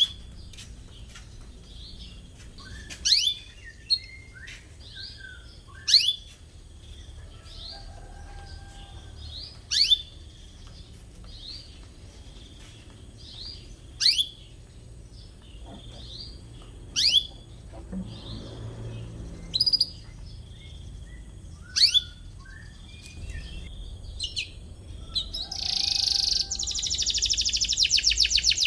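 Domestic canary calling with sharp, downward-sweeping 'cuit' chirps every few seconds and soft twitters between them, then breaking into a fast rolling trill near the end.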